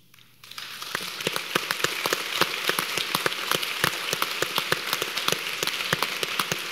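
Audience applauding: many hands clapping, starting about half a second in and rising to a steady level within a second.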